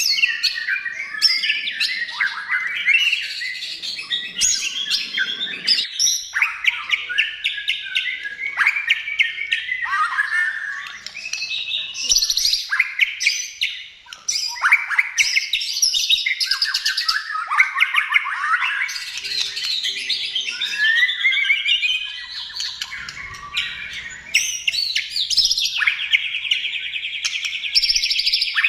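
White-rumped shama singing a long, varied song of whistled phrases that rise and fall, broken by fast chattering runs. Near the end it changes to a steady, buzzing trill.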